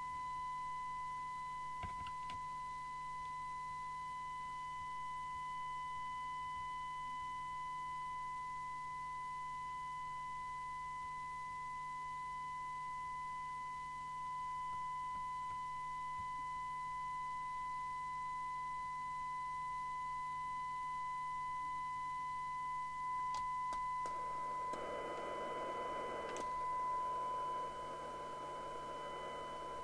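A steady 1 kHz test tone, received and demodulated by an FM CB radio on the test bench and played through its speaker, with a fainter overtone above it. A few clicks come about two seconds in, and a rush of hiss rises behind the tone near the end.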